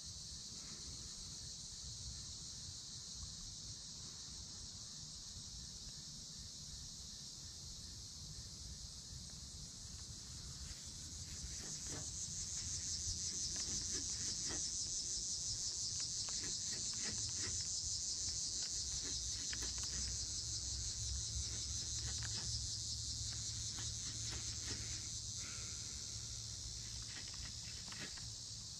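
A steady, high-pitched chorus of insects trilling, swelling louder about a third of the way in and holding, with scattered faint clicks from the baitcasting rod and reel being handled.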